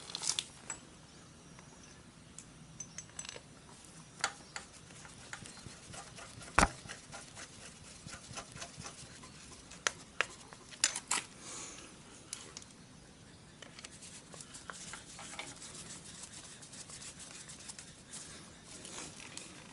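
Scattered light clicks and taps of a screwdriver and small metal parts knocking against the motorcycle engine and frame, with the rustle of gloved hands, as a mounting hole is felt for by hand. One sharper knock about six and a half seconds in.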